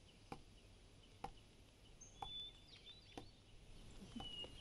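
Near silence, with faint birds chirping and four soft knocks about a second apart.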